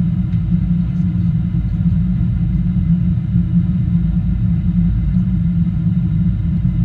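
Steady low rumble of cabin noise inside a Boeing 747-8i in flight: engine and airflow noise from its GEnx-2B engines and the passing air, with faint steady high tones above it.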